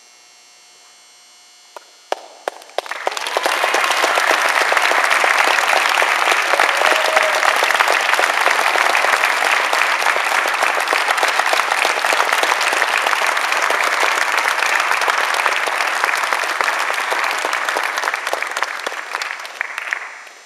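A group of people applauding: a few single claps about two seconds in, then sustained clapping that tapers off near the end.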